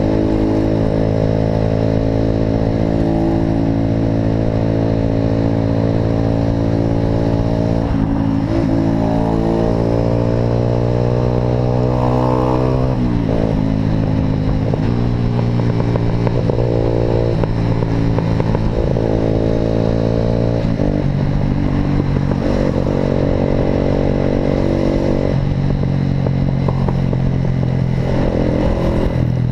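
Motorcycle with an aftermarket Atalla exhaust under way: a steady note for several seconds, then the revs rise and drop suddenly at a gear change about halfway through, and again about two-thirds of the way through.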